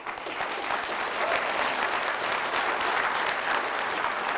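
Audience applauding in a lecture hall: many hands clapping in a dense, steady patter that begins abruptly and holds on.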